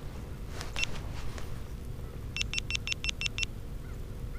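Electronic beeps: a single short beep about a second in, then a quick run of about eight identical beeps near the middle, over a low steady rumble.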